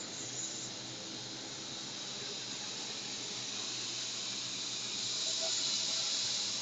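CNC milling machine running: a steady high hiss with a faint high whine, growing somewhat louder toward the end.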